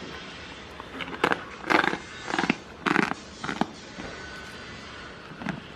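Goat chewing a hand-fed treat close by: a quick run of short crunching, smacking chews that starts about a second in and stops before the four-second mark.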